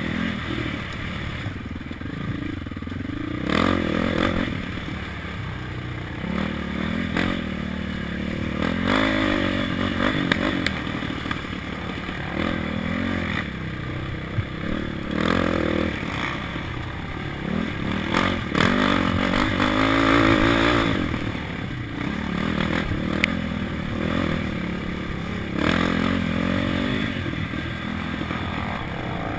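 KTM 525 quad's single-cylinder four-stroke engine revving up and falling back again and again as the rider accelerates and shifts. The chassis clatters and knocks over the bumpy dirt trail.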